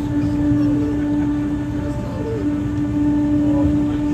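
Historic electric tram running along the line: a steady whine from its drive over the low rumble of wheels on rails.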